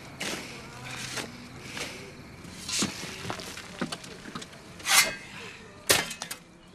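Irregular scuffing and scraping on dirt, with rustling between, and two louder, sharper scrapes about five and six seconds in.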